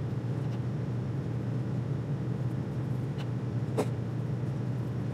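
Steady low hum of room background noise, with a couple of faint light clicks about three and four seconds in.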